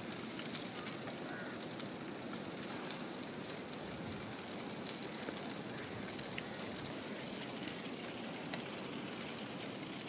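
Whole fish sizzling in an open foil wrap over a charcoal grill: a steady hiss with faint crackles now and then.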